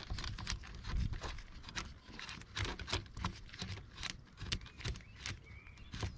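Irregular light clicks and taps of a hand tool undoing the screw and 10 mm bolt that hold a car's air intake pipe in place, scattered throughout.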